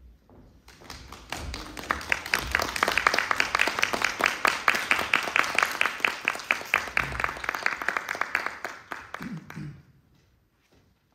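Audience applauding, starting about a second in and dying away shortly before the end.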